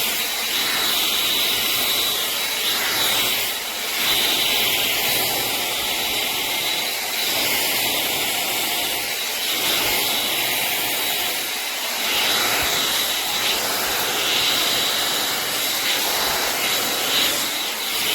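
LANDOT Plus 2.0 hot air brush running steadily, its fan motor blowing a strong rush of air with slight dips in level as it moves.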